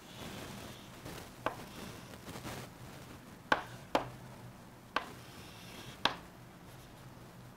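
Chalk on a chalkboard as lines are drawn: faint scratching strokes broken by about five sharp taps, the loudest about three and a half seconds in.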